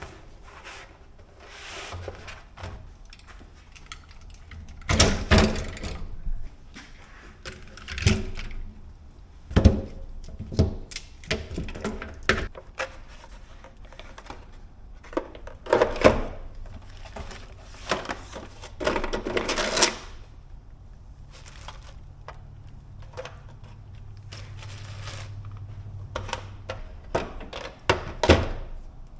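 Metal hand tools clinking and clattering as they are set into the drawers of a steel tool chest, with irregular knocks and rattles, a few of them sharp and loud.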